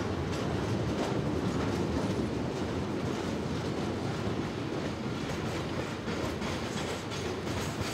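A freight train of open box wagons rolling past below, a steady rumble with faint repeated clicks of wheels over the rails.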